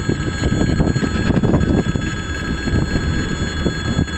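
Freight train's open gondola wagons rolling past: a steady rumble of wheels on rail with repeated clacks at the rail joints. A continuous high electric ringing, the level crossing's warning bell, sounds over it.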